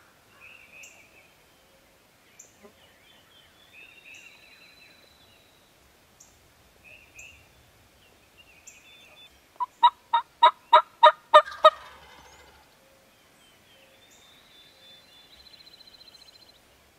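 Wild turkey tom gobbling once, about ten seconds in: a fast rattling run of about eight notes lasting roughly two seconds, by far the loudest sound. Songbirds chirp and trill faintly around it.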